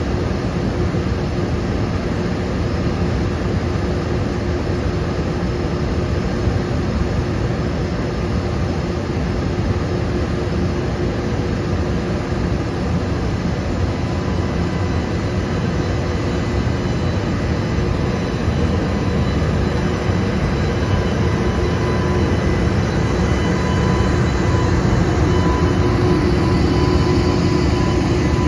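JR Freight EH200 electric locomotive with a steady running whir as it stands at the head of its tank-car train. In the later part it starts to pull away, and the noise grows slightly louder with a thin steady whine.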